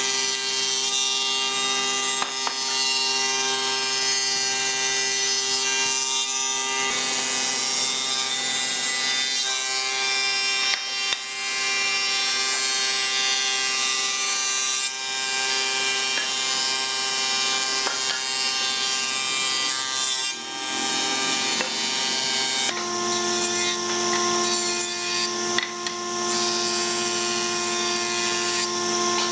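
Combination jointer-thickness planer running, its spinning cutterhead giving a steady whine over the hiss of wooden boards being planed. The tone of the machine changes about seven seconds in and again about twenty-three seconds in.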